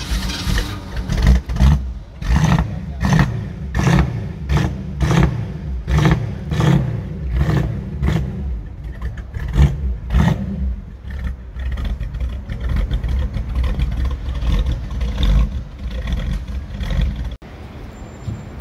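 Classic Ford Mustang engine revved in short throttle blips, about two a second, then running on more unevenly with lighter revs. It cuts off abruptly near the end to a much quieter engine idle.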